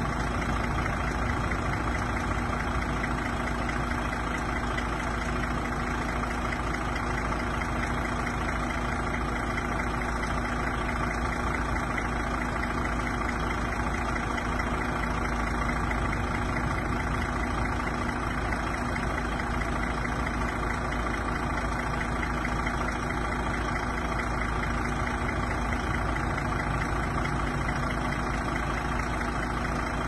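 DAF XF 460 tractor unit's 12.9-litre PACCAR MX six-cylinder diesel idling steadily.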